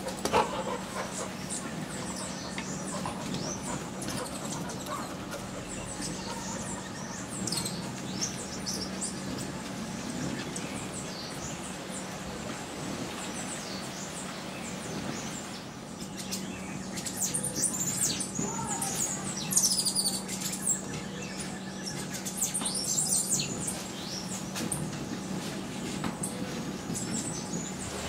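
Several small birds chirping and calling in short, high chirps, busiest in the second half.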